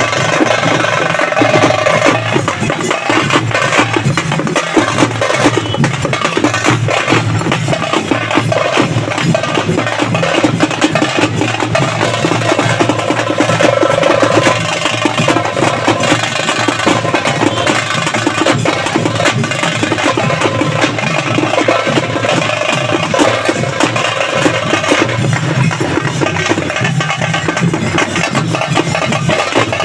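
Background music driven by fast, busy percussion, going on steadily.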